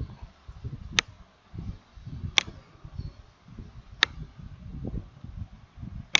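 Four sharp computer mouse clicks, spaced a second or two apart, over a low rumble of background noise.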